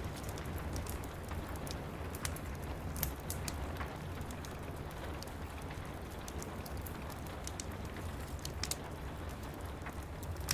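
Steady rain pattering against window glass, with scattered sharp crackles from a wood fire over a low, steady rumble.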